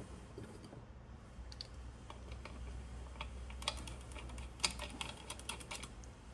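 Light, irregular clicks and taps of small metal parts and a hand tool knocking against a metal machine housing, coming thick and fast in the second half.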